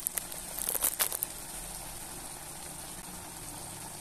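A plastic sachet of tomato paste crinkling several times in the first second or so as it is squeezed out over the pot, then a steady soft hiss of the ground beef and potatoes cooking on low heat.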